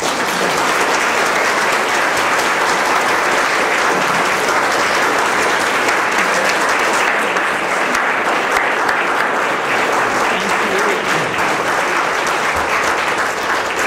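Audience applauding: dense, steady clapping that starts all at once and eases slightly near the end.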